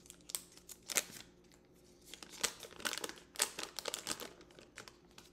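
Paper wrapper being peeled off a stick of butter: irregular crinkling and tearing of the paper.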